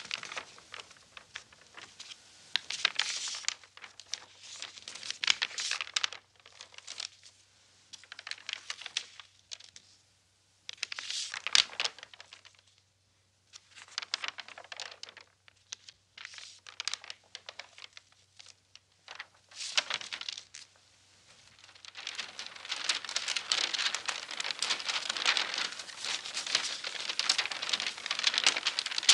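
Paper pages of old books rustling and flipping in short bursts with brief pauses between them. About three-quarters of the way in, it becomes a continuous fluttering rustle of many pages.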